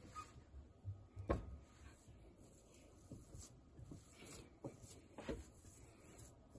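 Hands pressing and smoothing damp rice-bran pickling bed (nukadoko) over a buried piece of Chinese yam in a ceramic pickling container: faint soft rubbing and crumbling, with a few scattered light knocks, the sharpest just over a second in.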